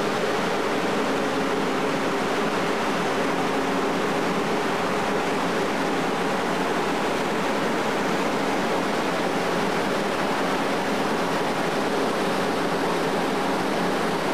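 Steady rushing noise of wind and water on a moving ship's deck, with a low, even engine hum underneath.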